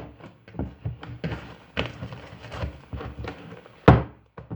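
Homemade slime being handled on a table: a string of irregular soft thunks and slaps, with one louder thump near the end, as the sticky slime is pressed down and pulled off the tabletop.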